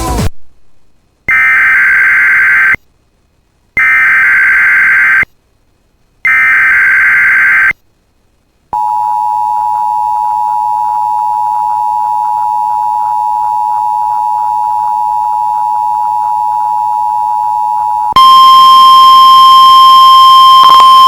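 Emergency Alert System alert: three short bursts of warbling digital data tones (the SAME header), then the steady two-tone EAS attention signal held for about nine seconds, which switches about 18 seconds in to a single steady alert tone.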